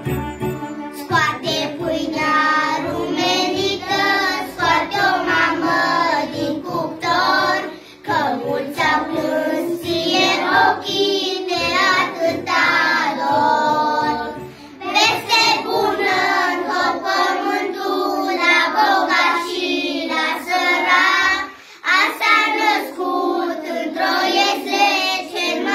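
A group of young children singing together, phrase after phrase, with brief pauses for breath between phrases.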